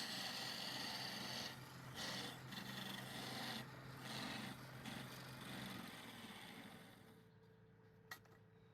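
Wood lathe turning with a chisel cutting the spinning wood: a harsh scraping hiss over a steady motor hum, easing off in short gaps, then fading out about six seconds in. A single sharp click near the end.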